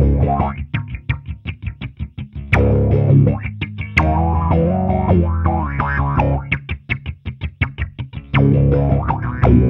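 Fender Precision Bass played through an EarthQuaker Devices Spatial Delivery envelope filter, the filter sweeping open on each plucked note. Runs of fast, short notes alternate with held notes, and a last note is struck near the end and left ringing.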